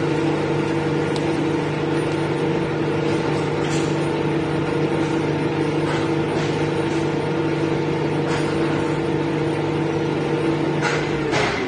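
Lathe running steadily with a constant machine hum and a few light scraping touches; near the end its pitch drops as it starts to slow down.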